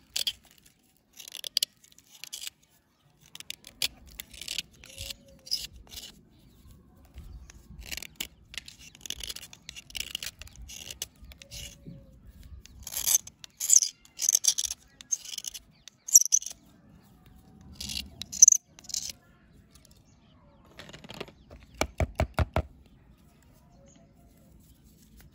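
A pocket knife shaving and scraping a dry, crumbly bar, in short, sharp, gritty strokes that come in irregular clusters, with a quick run of about eight knocks near the end.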